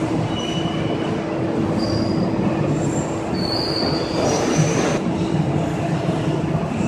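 Machinery of a rubber tire-tread extrusion line running: a loud, steady noise with a constant hum, and several brief high-pitched squeals through the first five seconds.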